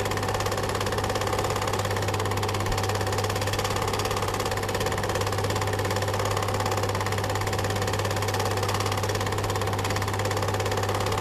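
Cine film projector running: a fast, even mechanical clatter of the film transport over a steady motor hum.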